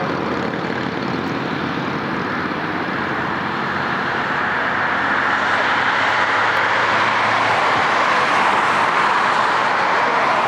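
Airbus A330-200 jet engines running, a steady noise that grows louder from about halfway through.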